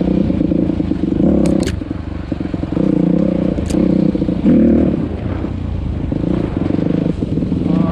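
Small off-road vehicle engine running and revving, its pitch and level rising and falling with the throttle. A few sharp clicks come about a second and a half in and again near four seconds.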